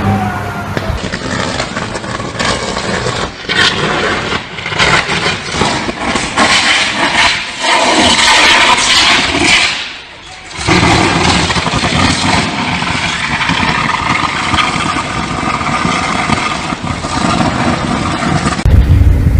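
Electrical arcing from a short circuit: loud, continuous crackling and hissing with many sharp snaps. It drops out briefly about halfway through.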